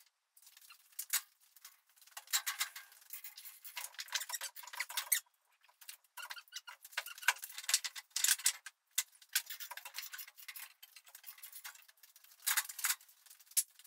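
Irregular metallic clinks, ticks and rattles of metal parts and tools being handled around an engine hung from a gantry-crane chain, coming in bunches with short gaps between them.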